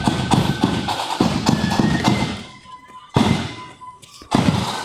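Marching band playing, with heavy drum strikes over held higher notes; the sound drops away twice briefly near the middle.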